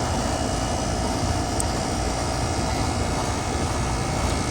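Central air-conditioner condensing unit running: compressor and condenser fan giving a steady, even rush of noise with a faint steady tone, the unit still starting and running even though a power-line short blew its starting components.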